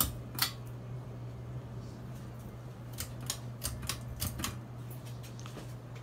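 53-inch Casablanca Lanai ceiling fan running with a steady low motor hum. Sharp light clicks sound over it: two in the first half second and a cluster of about seven between three and four and a half seconds in.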